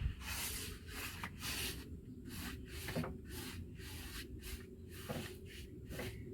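Green paint being scrubbed onto the bare wood of an old door in quick back-and-forth strokes, a scratchy rubbing about three times a second.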